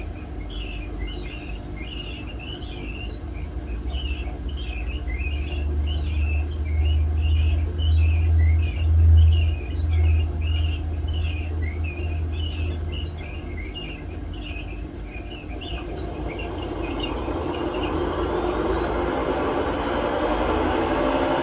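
Hotpoint WMA32 washing machine running up into its 800 rpm spin: a heavy low drum rumble, loudest in the middle, with a regular high squeaking. About three-quarters of the way through, the motor and drum speed up with a rising whine. The drum bearings are worn out.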